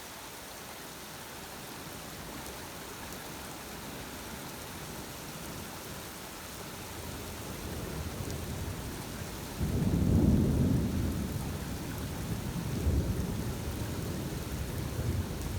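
Steady rain with thunder rumbling in. The rumble builds from about halfway, swells loudest around ten seconds in, and keeps rolling after that.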